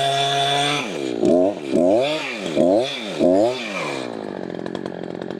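Chainsaw engine running steadily at full throttle, then about a second in it drops off and is revved up and down about five times before settling to idle.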